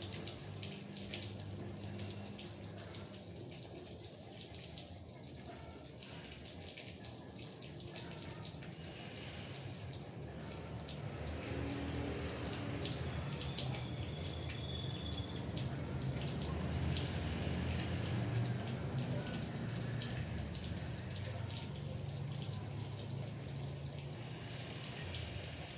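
Cats eating wet food, perhaps with goat milk, from plastic bowls: a steady run of small wet clicks and smacks from chewing and lapping. A low background hum swells in the middle.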